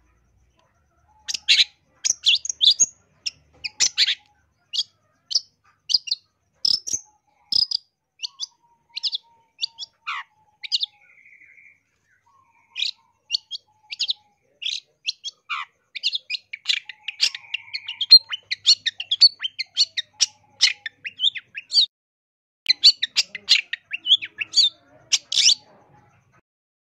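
A long-tailed shrike (cendet) sings a fast, varied run of sharp high chirps and whistles broken by short buzzy trills, with a brief pause midway. It is a cendet's 'full isian' song, packed with phrases mimicked from other birds.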